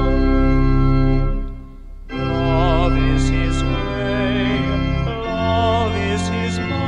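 Background music: sustained organ chords with a melody line sung or played with vibrato above them, breaking off briefly about one and a half seconds in, then resuming.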